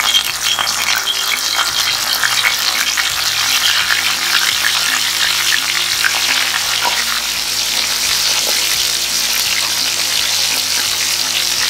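Flour-dusted butterfish frying in hot oil in a stainless steel skillet: a steady, dense crackling sizzle.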